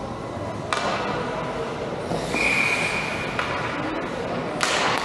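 Skate blades scraping and carving on rink ice, with sharp spraying scrapes about a second in and again near the end. A short, steady whistle blast of under a second sounds around the middle.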